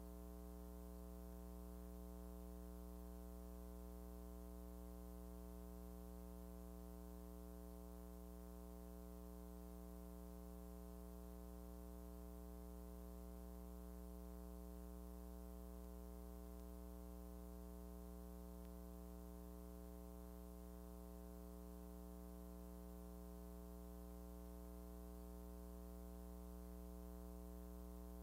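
Faint steady low hum with a stack of evenly spaced overtones, unchanging throughout, over light hiss; the footage itself is silent.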